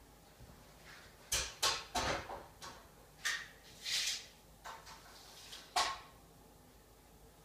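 A string of sharp knocks and clatters, about seven in all, with a short scrape about four seconds in, as wood and tools are handled at a work area. No power tool is running.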